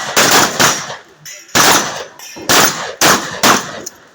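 Shotgun fired in quick succession at steel plate targets, about six sharp, loud shots in four seconds, each with a short ringing decay.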